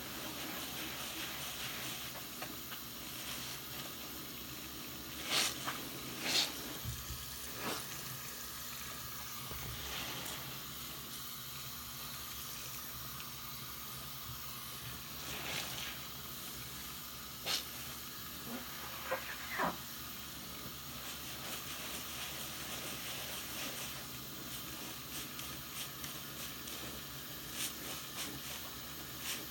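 Faucet running steadily into a sink of soapsuds, with the wet fizz of lather, while a soapy sponge is squeezed and rubbed in wet hands, giving a few short squishes and squelches.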